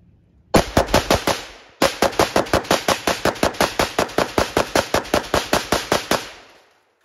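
Zastava M70 AK-pattern rifle in 7.62x39mm firing a rapid magazine dump: about six quick shots, a short pause, then a steady string of about two dozen more at roughly five a second until the firing stops.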